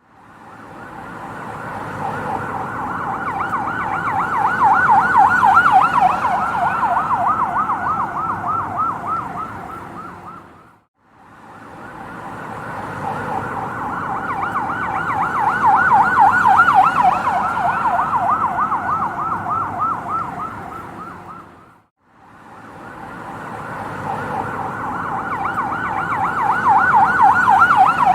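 Ambulance siren passing by with a fast yelping wail, growing louder as it approaches and fading as it goes away. The same pass-by is heard three times over.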